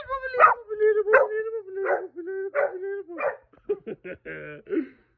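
Saint Bernard puppy howling: one long, slightly wavering howl held for about three seconds, then breaking into a few short, choppy calls.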